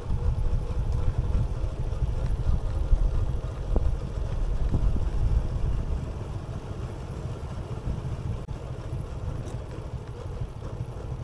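Travelling in a moving vehicle: a steady low rumble of engine and wind on the microphone, easing a little about halfway through.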